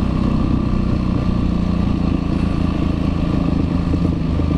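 Yamaha WR450F's single-cylinder four-stroke engine running at a steady pace while the bike is ridden, its pitch holding nearly level.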